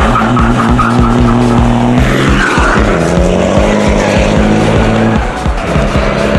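Background music with a steady drum beat and low held notes that change pitch twice.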